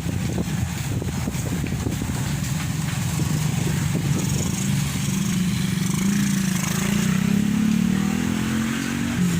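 A motor vehicle's engine running steadily, its pitch climbing gradually as it speeds up, then dropping sharply near the end.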